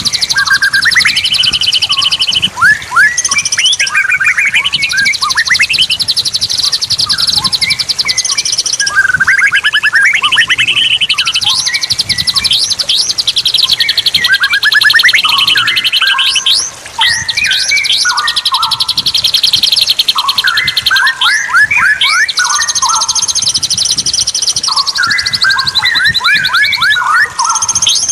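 Straw-headed bulbul (cucak rawa) singing a continuous run of loud, sliding whistled phrases, over long, fast, high-pitched trills.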